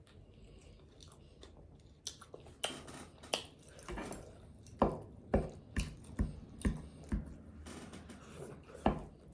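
Close-miked chewing of crispy fried chicken wings: crunchy bites and wet chewing smacks in a steady rhythm of about two a second. The chewing starts about two seconds in.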